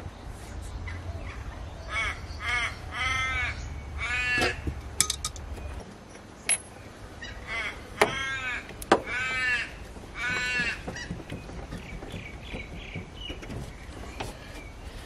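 A crow cawing in two runs of about four harsh caws each, the runs several seconds apart. A few sharp clicks, like tools touching metal, sound between and during the caws.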